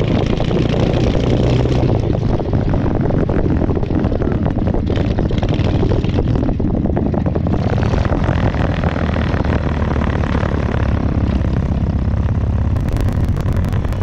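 Two-wheel tractor engine running steadily as the machine drives across grass, heard close up from the seat behind it. A crackling hiss joins in near the end.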